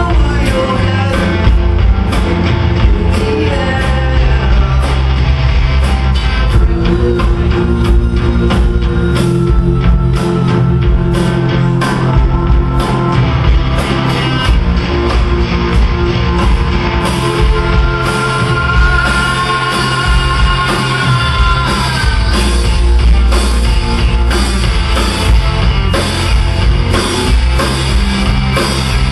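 Indie rock band playing live: electric guitars and a drum kit, with a man singing.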